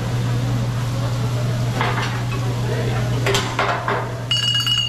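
Metal cooking utensils clanking and scraping against a cooktop, with a few sharp clanks and, near the end, a quick ringing rattle of metal on metal. A steady low hum runs underneath.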